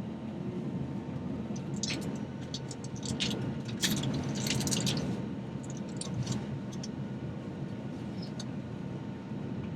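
Steady cabin noise of an Airbus A321 airliner in flight: a low rumble with a faint steady hum. Short crinkling and clicking sounds come close by from about two seconds in to about six seconds in, with one more near the end.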